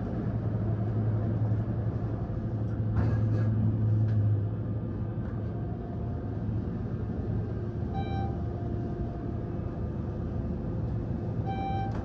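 Schindler 400A machine-room-less traction elevator car travelling upward: a steady low ride hum, heavier for the first four seconds and then lighter. Two short electronic beeps sound, about 8 s in and again near the end.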